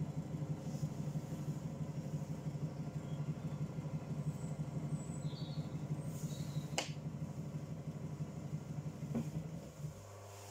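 Electric potter's wheel motor running with a steady low hum while a bowl is trimmed on it, then cutting out near the end, leaving a faint even hum. A single sharp click about seven seconds in.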